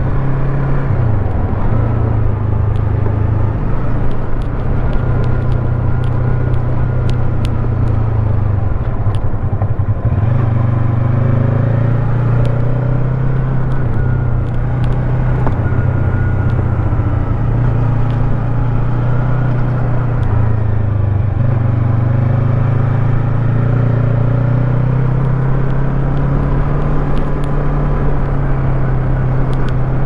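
Yamaha MT25 parallel-twin motorcycle engine running under way, its note dropping and rising a few times with the throttle.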